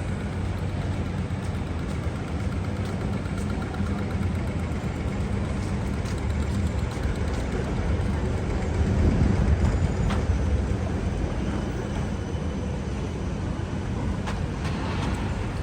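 City street traffic: a steady low rumble of cars and other vehicles passing, with one vehicle louder as it goes by about nine seconds in.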